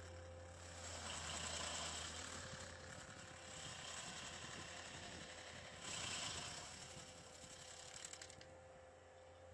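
Skid steer engine running steadily while its Blue Diamond Extreme Duty hydraulic stump grinder cuts into a stump. The grinding noise swells and eases three times.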